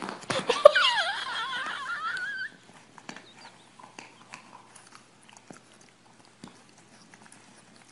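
A dog whining in a high, wavering pitch for about two seconds, then faint irregular clicks.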